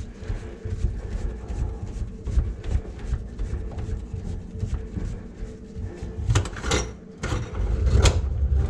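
Drum drain-cleaning machine running, its cable turning in a kitchen sink drain line with a steady low rumble and rattle, and a few sharp clanks in the last three seconds.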